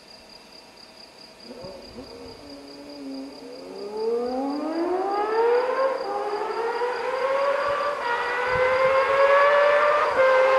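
Honda CBX1000 inline-six motorcycle accelerating hard through the gears, growing much louder as it approaches. Its high-pitched wail climbs in pitch, dips briefly at each upshift about six, eight and ten seconds in, then climbs again.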